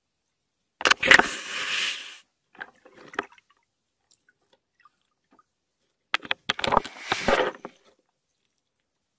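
A beaver right at an underwater camera: two bursts of scraping and knocking, each about a second and a half long, the first about a second in and the second past the six-second mark, with a few faint ticks in between.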